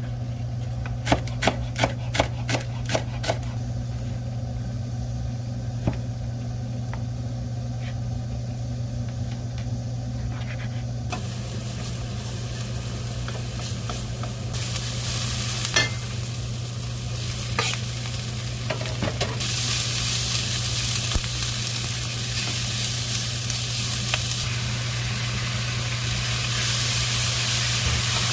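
A few quick knife strikes on a cutting board, then food sizzling in a hot frying pan. The sizzle starts about a third of the way in and gets louder in the second half, over a steady low hum.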